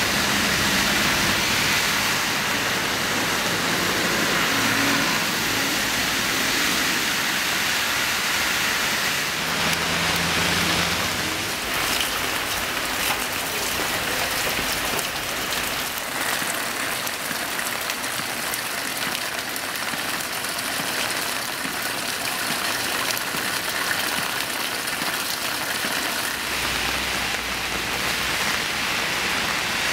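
Steady rain on a city street, heard as a constant hiss of water on the wet pavement, with the low rumble of vehicles passing on the wet road now and then.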